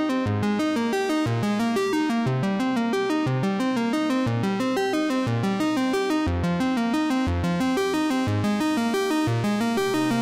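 Background music: a fast run of short repeating notes over a bass line that changes about once a second, steady in loudness.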